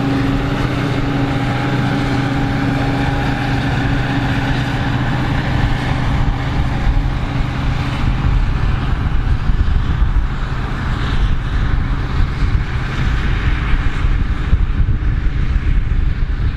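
Krone Big X 680 self-propelled forage harvester running under load while chopping maize: a steady machine drone with a hum over a broad rumble. The hum fades about halfway through, leaving a rougher low rumble.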